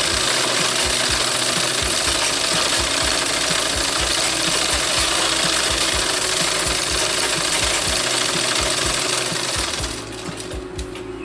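Sewing machine running steadily as it stitches a seam, with a regular knocking from its mechanism, stopping about ten seconds in.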